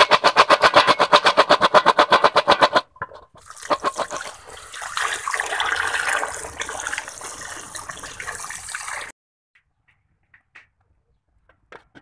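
Crispy fried pork rinds shaken in a stainless steel bowl: a loud, rapid, even rattle of about eight or nine strokes a second that stops just under three seconds in. Then comes the churning, splashing noise of water around pork skin in a cooking pot, which cuts off abruptly about nine seconds in.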